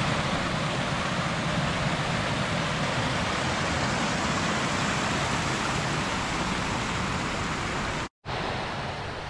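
Steady rush of fast-flowing stream water. It breaks off abruptly about eight seconds in and then carries on a little quieter.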